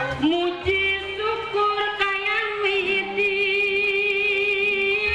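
Sundanese gamelan music of the wayang golek kind: a high melody slides up about a quarter of a second in and holds one long, wavering note over the ensemble.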